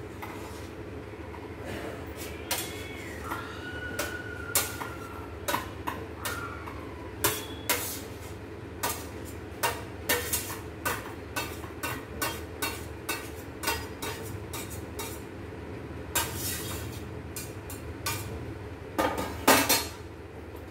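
Irregular sharp clicks and light metal knocks, one or two a second, over a steady low hum, with a louder clatter of steel dishes near the end.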